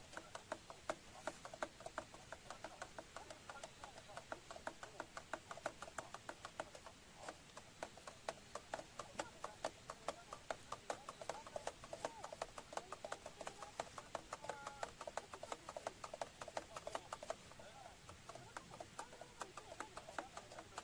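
Small wood fire crackling in a BushBox LF compact stove: a dense, irregular run of sharp little pops and ticks from burning twigs.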